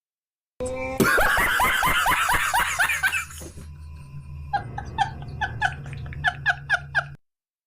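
Comic laughter sound effect: a loud laugh of repeated falling 'ha' notes, then a quieter run of short, quick laughs that cuts off suddenly.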